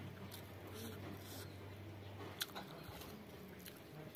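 Close-up eating sounds: soft chewing and fingers squishing rice and stew together on a wooden plate, with one sharp click a little past halfway. A faint low hum underneath stops at about the same moment.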